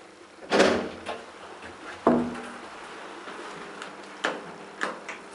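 Door and control knocks of a DEVE hydraulic elevator: a loud thud about half a second in, a sharp clack with a brief ringing tone about two seconds in, then two lighter clicks.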